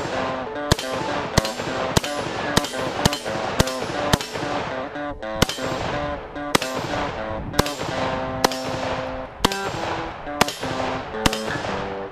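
AK-pattern rifle firing a steady string of single semi-automatic shots, a little more than one a second, over background guitar music.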